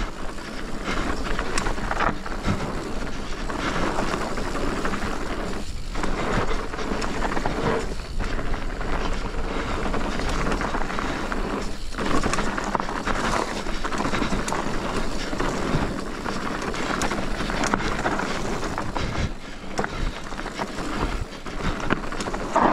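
Commencal Meta TR mountain bike descending a bike-park trail at speed: a steady rush of Continental Kryptotal tyres rolling over dirt and rocks, mixed with wind on the helmet camera, easing briefly a few times.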